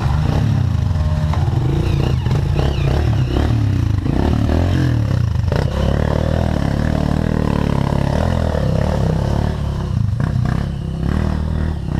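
Dirt bike engines running: a close one keeps up a steady low drone while another is ridden through deep mud ahead, its engine revving, with some clattering.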